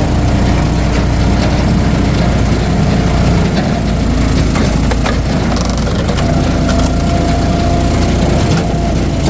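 Engine-driven hydraulic log splitter running steadily while its wedge forces through a large log, with wood cracking and splintering as it splits.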